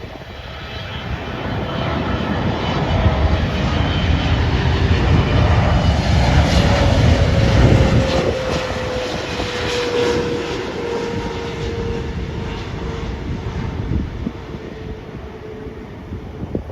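Jet airliner flying low overhead: the engine rumble swells to a peak about halfway through, then a whining tone slides slowly down in pitch as it moves away.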